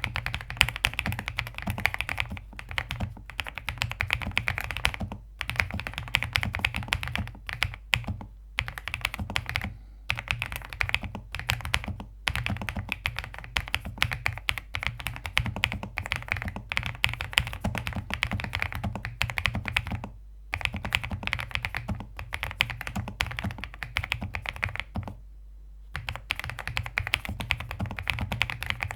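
Fast, continuous typing on a mechanical keyboard with Gateron Smoothie Silver linear switches (45 g) in an Ajazz AK820 case: a rapid run of light keystroke clacks with a few short breaks and a longer pause about 25 seconds in.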